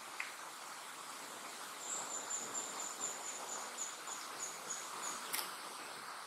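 Forest ambience: a steady hiss, with a high, thin, rapidly pulsed trill that starts about two seconds in, lasts about three seconds and falls slightly in pitch. A sharp click comes near the end.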